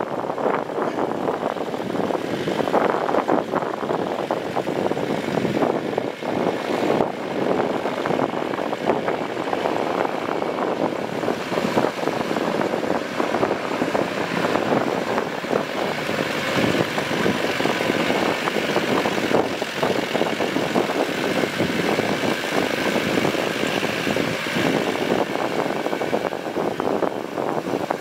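Farm tractor's diesel engine running steadily under load while it pulls a rotary tiller through flooded rice-paddy mud.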